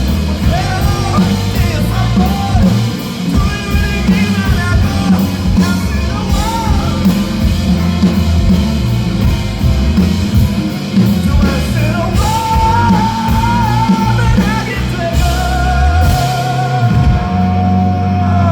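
Rock band playing with drums, bass and guitar under a singer's voice. In the last six seconds the voice holds two long, wavering notes.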